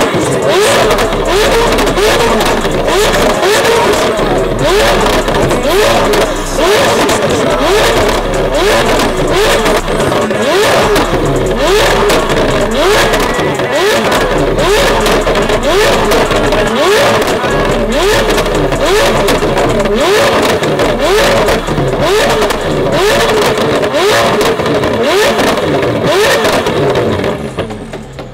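Straight-piped McLaren's twin-turbo V8 revved hard again and again through a custom exhaust, with rapid crackling and popping between the revs. The revving stops just before the end.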